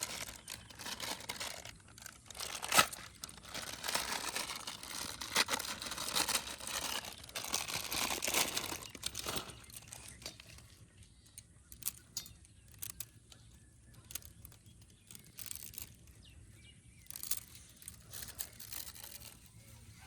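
Crinkling and crunching as a Maggi instant-noodle packet is handled and the dry noodles are broken up by hand. The sound is dense for about ten seconds, then gives way to scattered small clicks.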